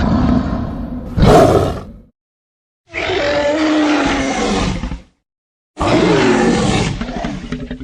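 Three separate roar sound effects of about two seconds each, with dead silence between them; the first swells louder about a second in.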